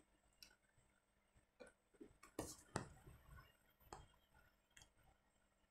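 Near silence, broken by a scatter of faint short clicks and ticks, mostly between about one and a half and four seconds in.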